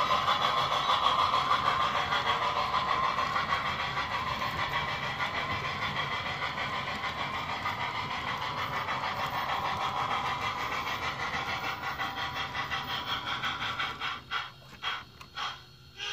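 HO scale model freight cars rolling along the track, a steady rush of metal wheels on rail that grows fainter as the train passes. Near the end the sound breaks up into short pieces as the caboose rolls by.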